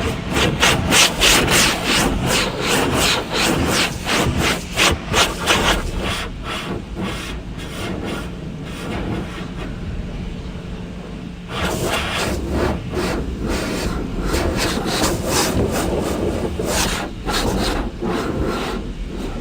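Automatic car wash brushes scrubbing against a car's body: a fast, uneven run of rubbing, slapping strokes, over a steady low hum that cuts off about halfway through.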